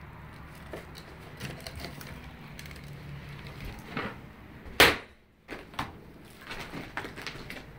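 Footsteps crunching and snapping over debris and broken wood on a floor, a scatter of irregular cracks, with one sharp loud crack a little before five seconds in.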